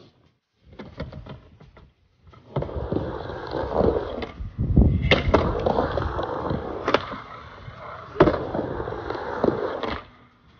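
Skateboard wheels rolling on a wooden vert ramp: a steady rumble, broken by several sharp clacks of the board and trucks.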